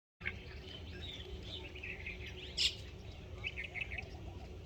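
Small birds chirping and twittering in a busy chorus of short calls and trills, with one louder, sharper call about two and a half seconds in, over a low rumbling background noise. The sound cuts in abruptly just after the start.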